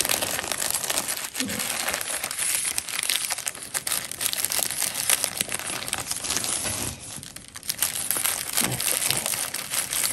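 Tissue paper and crinkly gold foil wrapping paper rustling and crinkling as a small wrapped gift is unwrapped by hand, with a short lull about seven seconds in.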